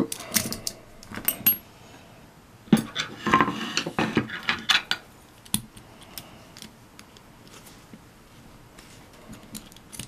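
Small metal clicks and clinks from handling a brass padlock core and picking up and setting down small hand tools, busiest in the first half, then faint scattered ticks as a thin tool works against the core.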